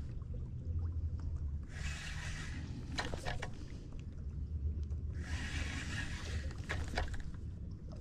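Water swishing in repeated strokes, one every three and a half seconds or so, over a steady low rumble of wind on the microphone, with a few light ticks.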